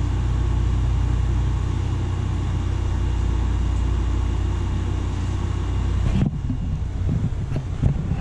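Steady low hum of background noise. About six seconds in, a few light knocks, typical of parts being handled, come in over it.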